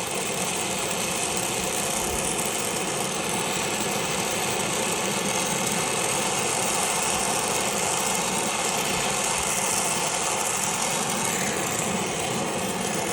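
Brazing torch flame burning steadily with an even hissing roar as a copper line joint on a replacement air-conditioning compressor is heated for silver brazing. A low steady hum runs underneath.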